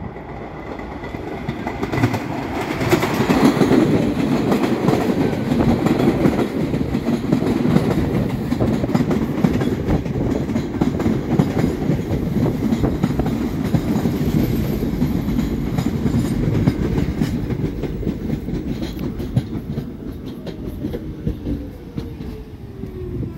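R46 New York City Subway train passing close and pulling into the station: a loud rumble with wheels clattering over rail joints. Near the end a falling whine as it slows.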